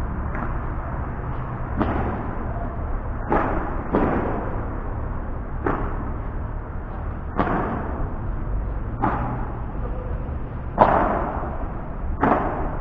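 Padel rally: a ball struck back and forth, with sharp pocks of racket hits and bounces about every one and a half to two seconds over a steady low rumble.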